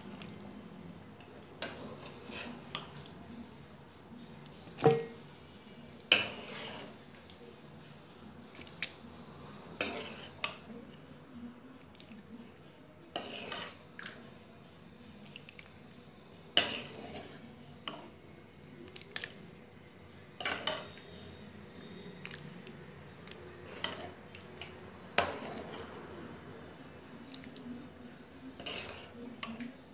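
A metal spoon scraping and clinking against the side of a metal pot of chicken curry, in irregular strokes every second or two, the sharpest knocks about five and six seconds in.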